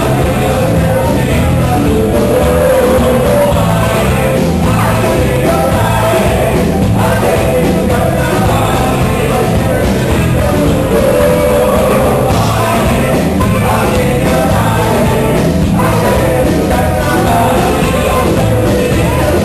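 Loud salsa music with a singer, played over a club sound system, with a steady repeating bass line.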